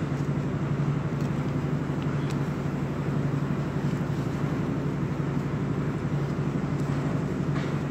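A steady low mechanical hum over constant background noise, with faint rustles of stiff paper being handled.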